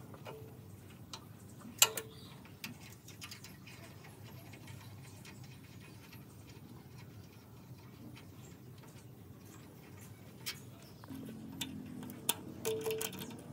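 Scattered light clicks and taps from hand work on metal machine parts, one sharper knock about two seconds in, over a low steady hum; near the end the taps come thicker, with a brief ringing tone.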